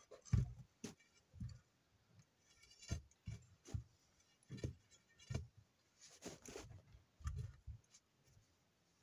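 Faint, irregular knocks and clicks with dull low thumps, about a dozen spread unevenly, as of metal tools and parts being handled during tyre-changing work.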